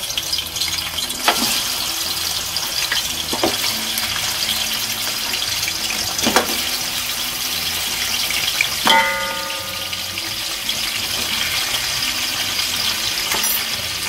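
Beef bones sizzling in hot oil in an aluminium pot as more pieces are dropped in, with a few short knocks as they land. A brief ringing tone comes about nine seconds in.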